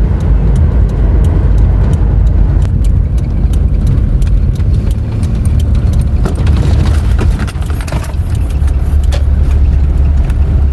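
Car interior driving noise: a steady low rumble of engine and tyres, with many small clicks and rattles from the cabin.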